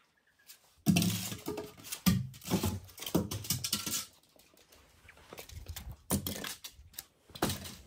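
Cardboard shipping carton and styrofoam packing being handled: a run of knocks and rustles for about three seconds, then two more short knocks near the end.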